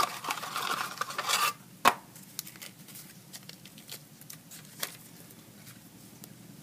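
Craft supplies being handled on a work surface: about a second and a half of rustling, a sharp click just under two seconds in, then a few faint light taps.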